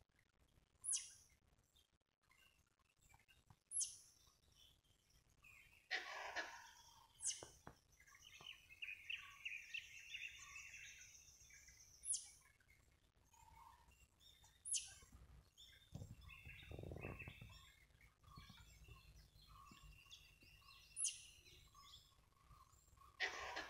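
Faint forest bird calls: a short, sharp, high call repeated every few seconds, with scattered chirping between them. A brief low rumble comes about two-thirds of the way through.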